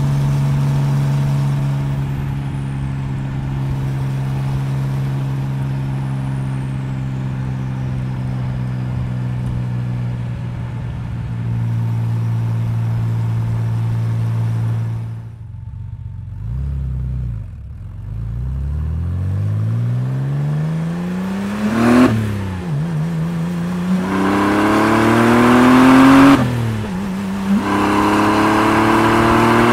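Porsche 911 Speedster's air-cooled flat-six heard from the open cockpit: running at a steady cruise, then the revs drop off around the middle. It then pulls hard, rising in pitch through two upshifts about four seconds apart, louder with each gear.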